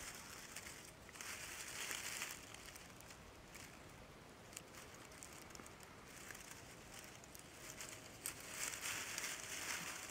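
Breath blown in long soft hisses onto smouldering charcoal and dry-leaf tinder to nurse the ember into flame. There is one long blow at the start and another near the end, with faint crinkling of the dry leaves between.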